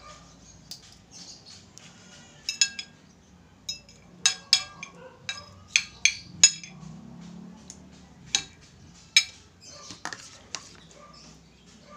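Metal fork and spoon clinking against a cut-glass plate and dishes while eating. About eight sharp, ringing clinks come unevenly, most of them in the middle, with softer scrapes between.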